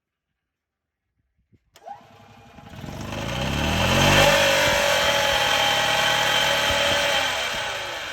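A click, then the EZGO TXT gas golf cart's single-cylinder engine starts and winds up in pitch, holds steady for a few seconds and begins to slow near the end. Over it runs a whining grind from the drive clutch, the fault the owner is showing.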